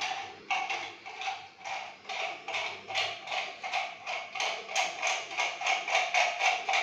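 Plastic parts of a toilet cistern fill valve being twisted together by hand, a run of short rasping clicks, one with each twist, speeding up from about two to about four a second.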